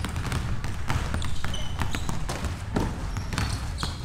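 Several basketballs dribbled at once on a wooden gym floor, making quick, irregular, overlapping bounces, with a few short high sneaker squeaks.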